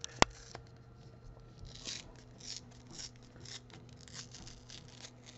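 Cardboard trading card being ripped open by hand along its tear strip: a sharp snap about a quarter second in, then a run of short scratchy tearing and peeling sounds.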